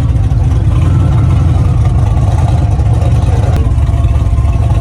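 A car engine running steadily, loud and low-pitched.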